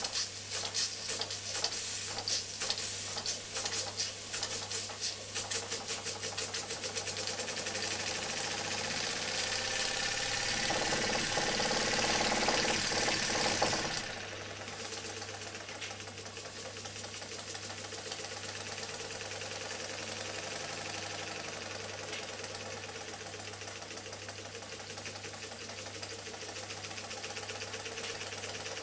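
Peake Engines No. 3 model steam engine with sun-and-planet gearing being started by hand: separate exhaust chuffs quicken over the first several seconds into a fast, hissing run. About fourteen seconds in the sound drops abruptly and the engine runs on quieter and steady at speed.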